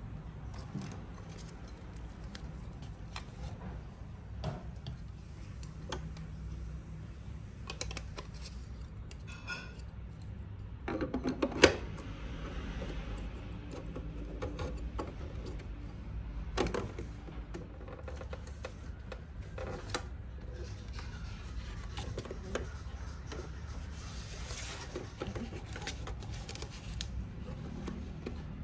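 Plastic parts of a thermal label printer and its spool holder being handled as a roll of labels is loaded: scattered light clicks and knocks, with one sharp snap about twelve seconds in, over a steady low hum.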